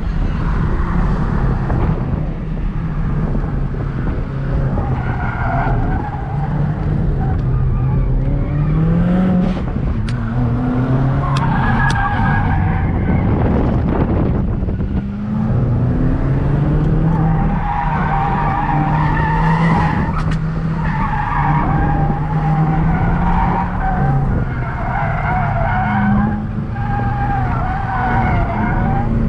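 Subaru WRX's turbocharged flat-four engine heard from inside the cabin, its pitch repeatedly rising and falling as the car is driven hard, over heavy tyre and road noise.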